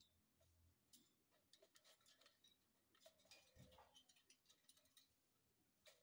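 Faint, irregular clicks and taps of parrots' claws and beaks on the bars of a wire cage as they climb about, with a soft bump a little past the middle.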